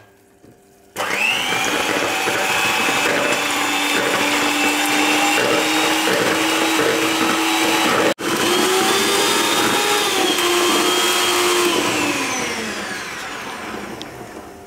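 Electric hand mixer beating egg whites into a foam, its motor whining steadily. It starts about a second in, cuts out for an instant past the middle, then slows and fades near the end.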